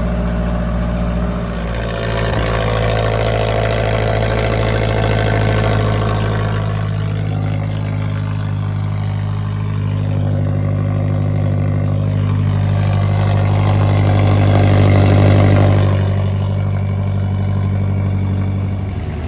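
A car engine running steadily at a low, even pitch, swelling somewhat louder about fifteen seconds in before easing back.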